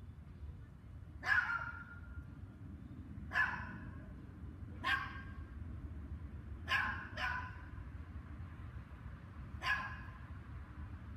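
A dog barking: six single barks spaced one to two seconds apart, two of them in quick succession about seven seconds in, over a steady low background rumble.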